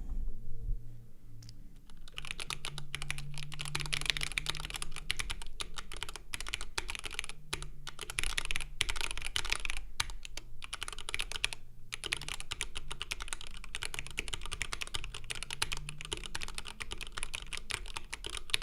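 Typing on a Mark: 65 gasket-mount 65% keyboard with an anodized aluminum case and aluminum plate, stock unlubed Durock L2 switches and GMK keycaps. A dense, fast run of keystroke clacks starts about two seconds in, on the main keys only, with no space bar or other stabilized keys.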